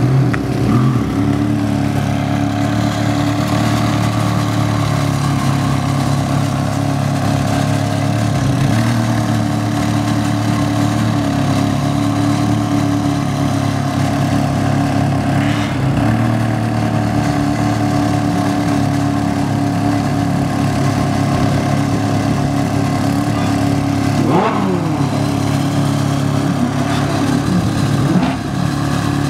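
Ferrari 360 Challenge Stradale's 3.6-litre V8 running steadily at low revs near idle as the car creeps along. Late on there is one short rise and fall in engine pitch.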